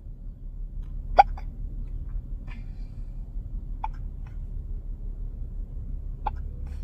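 A baby hiccuping, three clear short hiccups a couple of seconds apart with a fainter one between the first two; the first is the loudest.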